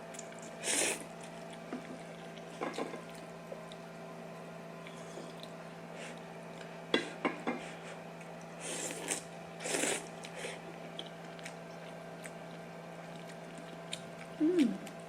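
A steady electrical hum with scattered short rustling and handling noises, the loudest near 1 s, near 7 s, around 9 to 10 s, and once more near the end.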